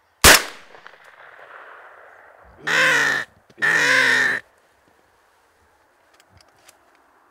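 A single shotgun shot, followed about two seconds later by two loud, drawn-out crow caws.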